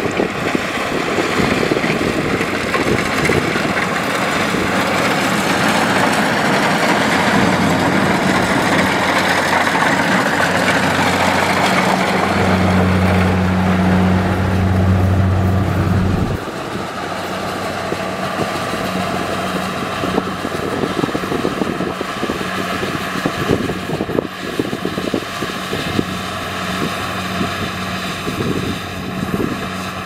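Kubota DC70 rice combine harvester running as it cuts and threshes rice, making a loud, steady mechanical din with a low engine hum. The low hum drops away suddenly about sixteen seconds in.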